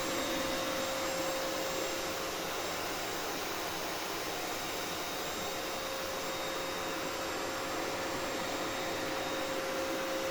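Vacuum cleaner running steadily, an even rushing noise with a constant hum-like whine in it.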